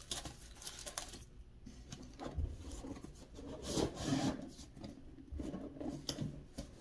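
Wrapping paper rustling and cardboard rubbing and scraping in short, irregular bursts as a paper sheet is pulled from a shipping box and a cardboard shoe box is handled and turned over.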